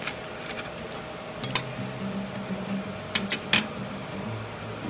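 Metal fork cutting through a fried jalapeno popper on a plate, with a few sharp clicks and taps of the tines against the plate: two about a second and a half in, and three more near the end, the last the loudest.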